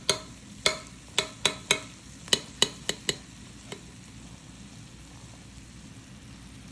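A metal utensil clicking and scraping against the slow cooker's ceramic crock about nine times in the first three seconds as it digs into the baked dessert, then stopping. Under it, a faint steady sizzle from the hot, iced dessert.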